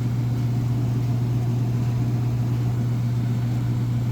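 Belt-driven HVAC unit giving off a steady low hum. The hum comes from a worn drive belt, an A38: a new belt makes it go away.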